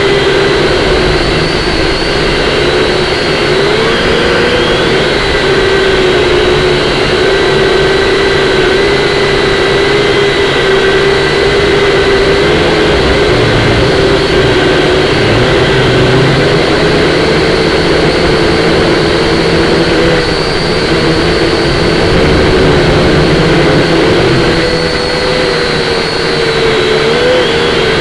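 Syma X5C-1 quadcopter's small electric motors and propellers whining steadily, the pitch wavering up and down as the throttle is worked against the gusts. Wind rumbles on the microphone underneath.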